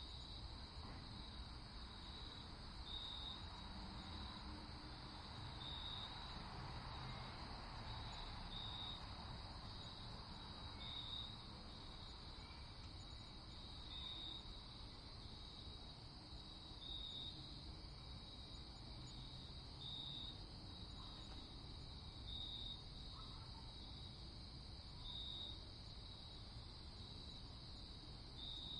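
Faint insect chirping, a short high chirp every two seconds or so, over a low steady hum.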